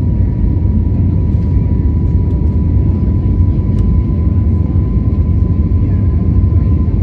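Cabin noise of an Airbus A320-family airliner climbing after takeoff: a loud, steady rumble of the jet engines and airflow, deep and even, with a thin steady whine on top.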